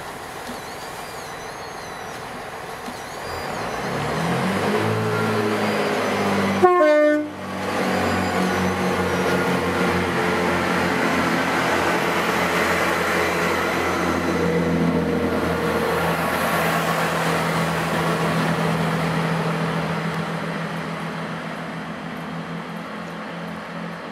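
Chiltern Railways Class 165 diesel multiple unit pulling away: its underfloor diesel engines rev up about three seconds in, then run at a steady pitch as the train accelerates past, fading near the end. There is a brief loud burst about seven seconds in.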